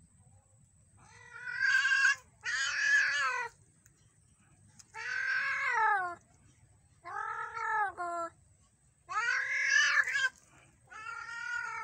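A domestic cat meowing repeatedly: six long, drawn-out meows of about a second each, with short pauses between them.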